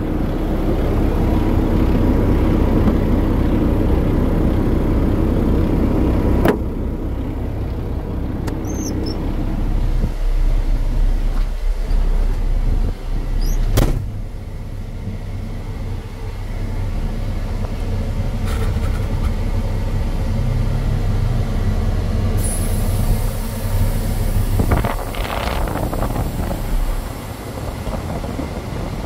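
Peterbilt 389's Paccar 12.9-litre inline-six diesel idling steadily. It is loud and full at first, then duller, as heard from inside the cab, after a sharp knock about six seconds in. A second sharp knock comes about halfway through.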